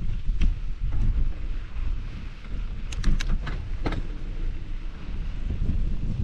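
Wind buffeting the camera microphone on a moving mountain bike, a constant low rumble. A quick run of sharp clicks or rattles comes about three to four seconds in.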